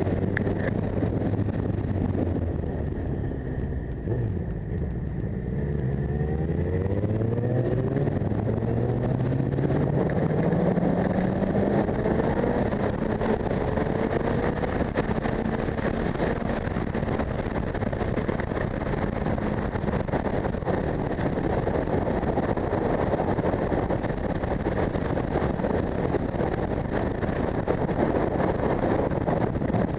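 Motorcycle engine running at speed, dipping briefly a few seconds in, then its note climbing steadily as the bike accelerates before settling into a steady cruise, with wind rushing over the microphone.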